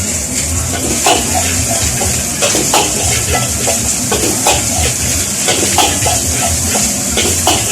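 Metal spatula clinking and scraping in a wok in irregular strokes, over a steady sizzling hiss of frying.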